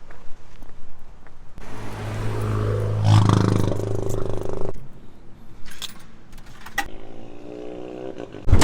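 A motor vehicle passes, its engine hum and road noise swelling for about three seconds from the second second, with a fainter engine hum near the end and scattered light clicks.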